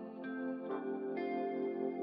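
Ambient background music: sustained, ringing notes, with three new notes coming in over the first second or so.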